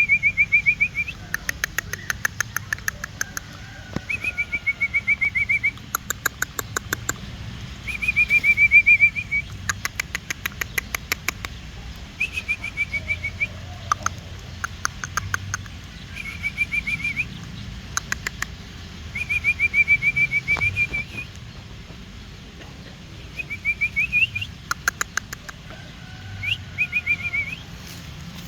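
Birds calling: short trilled notes repeated every couple of seconds, with fast rattling series of clicks in between.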